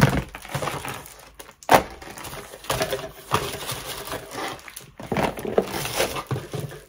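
Bubble wrap and a cardboard shipping box being handled: plastic crinkling and rustling, broken by a few sharp knocks, the loudest a little under two seconds in.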